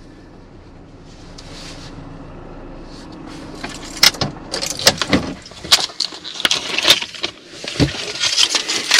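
Van engine running low as it creeps along, then from about four seconds in a run of sharp clicks, knocks and rattles close to the microphone as the dash camera is handled and taken down inside the cab. The low engine rumble dies away around the middle.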